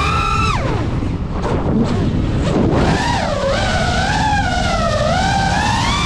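FPV quadcopter motors and propellers whining, the pitch sliding up and down with the throttle. The whine fades out about a second in and comes back about three seconds in, wavering.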